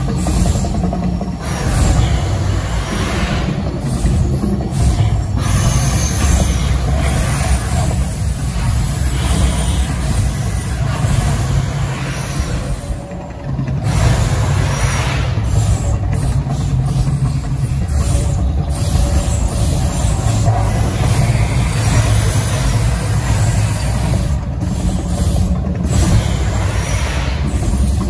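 The Mirage volcano eruption show: a loud, deep rumble from the show's sound system, swelling and easing every few seconds, with its music underneath.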